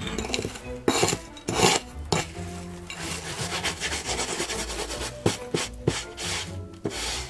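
Hands and a garden trowel scraping and brushing through dry sand in a run of rasping strokes, densest in the middle.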